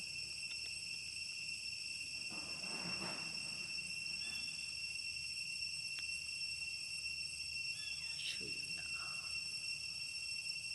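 Steady insect chorus, several high-pitched tones held without a break, with a few faint brief sounds underneath.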